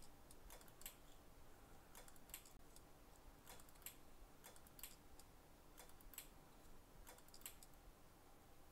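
Faint, irregular light clicks and ticks, a few every second or so, from small parts and a cable being handled on a repair bench.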